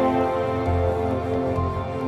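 Instrumental background music with held notes over a slow low pulse.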